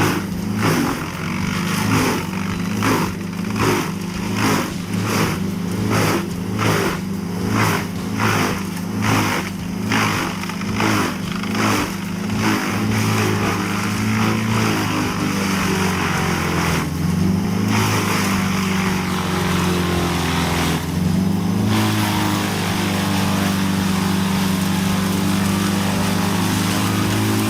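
Vermeer BC2100XL drum brush chipper's engine running hard while it feeds and chips tree limbs. A regular pulsing comes about once a second for the first dozen seconds, then the drone runs steadily, its pitch dipping briefly twice under load.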